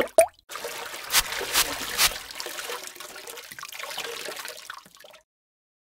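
Liquid sound effect for an animated end-screen transition: a short rising swoosh, then splashing and trickling with three sharp drip hits in the first two seconds. It fades out about five seconds in.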